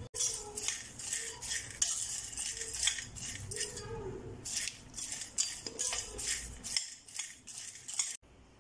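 Metal spoon stirring fried green peas in a ceramic bowl, with irregular clinks and scrapes of spoon against bowl as the peas are tossed. The strokes come quickly and unevenly, then stop abruptly near the end.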